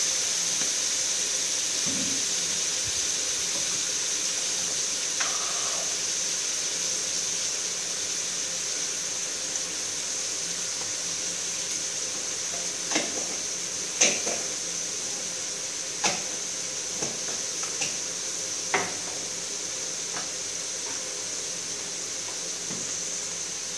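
Chopped pork sizzling in a hot wok, a steady hiss that slowly dies down, with a few sharp pops and crackles in the second half.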